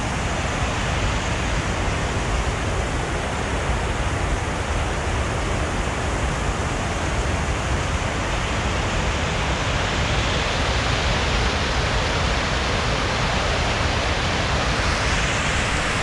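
Water rushing steadily down a stepped concrete reservoir spillway, an even rush of running water that grows a little brighter in the second half.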